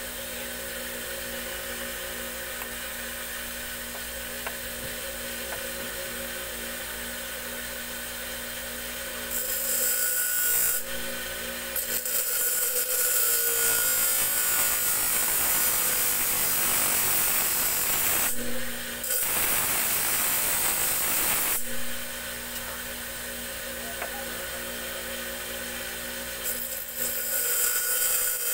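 Motor-driven grinding wheel running with a steady hum. From about nine seconds in, a small steel tari blade is pressed against it in several passes, giving a harsh hissing grind that stops and starts; the hum's pitch dips slightly under load.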